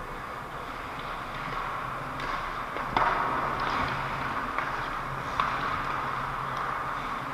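Ice hockey skate blades scraping and carving on the ice in front of the net, with one sharp knock about three seconds in, typical of a puck or stick strike. A couple of lighter stick clacks follow.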